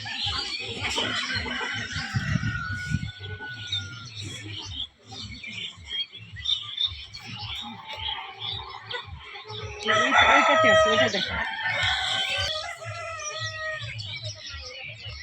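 A flock of chickens clucking and calling over each other. About ten seconds in, the loudest call, a drawn-out one lasting about a second, rises above the flock: a rooster crowing.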